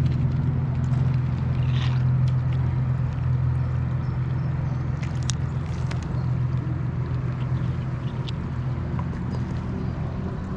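An engine running steadily with a constant low hum, with a few light clicks over it.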